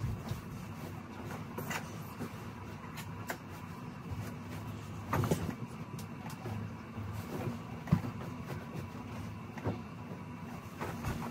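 Bedding and pillows rustling and bumping as a bed is made, a few short sharp rustles and knocks over a steady low room hum.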